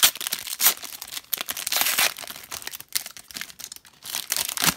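Foil wrapper of an Upper Deck hockey card pack crinkling and tearing as it is opened by hand: a dense run of sharp crackles, with a louder crackle near the end.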